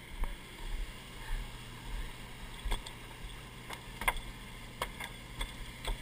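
Sportfishing boat's engine humming steadily with low rumble. Several sharp knocks and clicks of handling on deck come in the second half.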